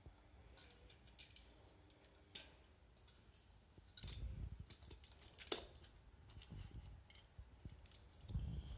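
Faint, scattered clicks of plastic Lego bricks being handled and pressed together, with a low rumble of movement about four seconds in and again near the end.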